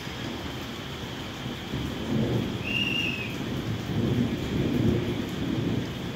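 Heavy rain falling steadily with low rolling thunder that swells about two seconds in and again around four to five seconds. A single short high chirp sounds about halfway through.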